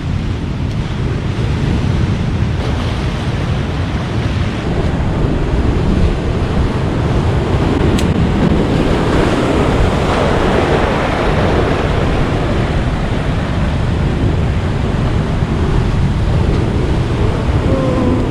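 Wind buffeting the microphone over breaking surf, loud and steady, with a single sharp click about eight seconds in.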